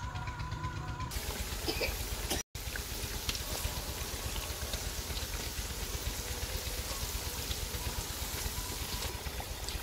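Vegetable pakoras sizzling and bubbling in hot oil in a karahi, a steady frying hiss with fine crackles. The sound cuts out for an instant about two and a half seconds in.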